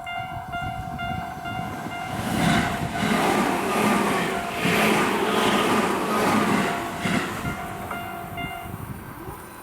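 Railway level crossing alarm, whose two sides sound slightly different in pitch, ringing in a fast steady repeating beat. A train passes loudly through the crossing from about two seconds in to about seven and a half seconds. The alarm stops near the end.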